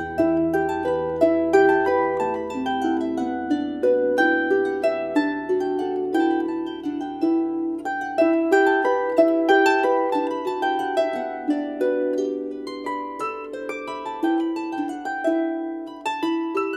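Background music of plucked strings: a flowing run of quick, separately plucked notes that ring and fade.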